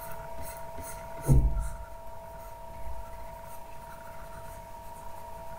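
A stylus scratching faintly on a drawing tablet in short painting strokes, over a steady faint electrical whine, with one dull thump about a second in.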